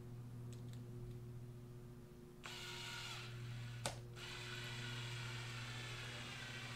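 Cordless drill running to drive a screw through a plastic bunk cover into a wooden trailer bunk, starting about two and a half seconds in, with a sharp click partway through.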